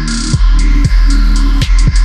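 Electronic background music with a heavy bass and punchy kick drums.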